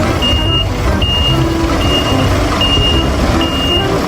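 Reversing alarm beeping at an even pace, about five high beeps, each a little under half a second long, over a steady low rumble.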